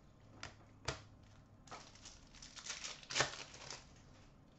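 Hockey trading cards being handled and sorted by hand: a soft crinkling rustle with a few light clicks, the loudest about three seconds in.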